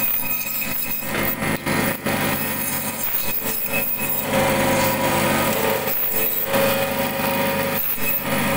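A small electric motor running with a steady, high-pitched hum, with a few light knocks.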